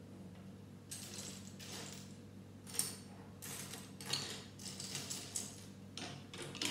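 Loose plastic Lego pieces clattering and clicking against each other and the wooden tabletop as a hand sifts through them. The rattles come in several short, irregular bursts, with one sharp click about three seconds in.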